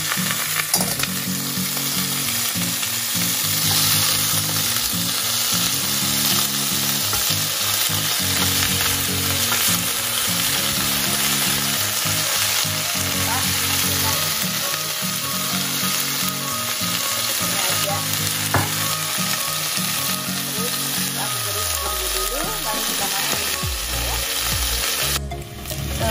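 Steady sizzling of food frying in hot oil, with some stirring. The sizzle cuts off briefly just before the end.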